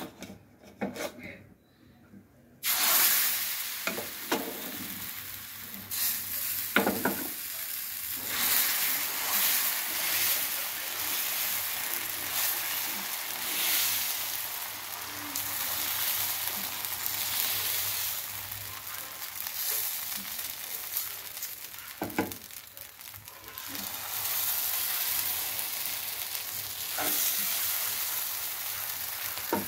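Moong dal dosa batter sizzling on a hot, oiled cast-iron tawa. A sudden hiss starts about two and a half seconds in and runs on while a steel ladle spreads the batter in circles, with a few light knocks of the ladle.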